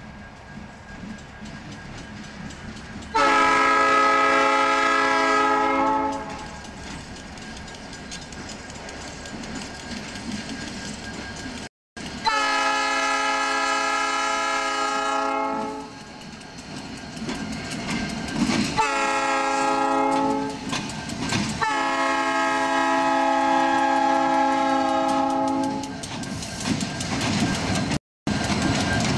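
Air horn of a Soo Line EMD SD60 diesel locomotive sounding four blasts, long, long, short, long: the grade-crossing warning. Between the blasts the passing locomotives rumble and the wheels clatter on the rail joints.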